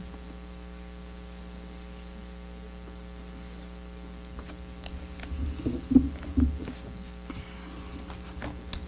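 Steady electrical mains hum, with a few low bumps and soft clicks about five to six and a half seconds in and again near the end.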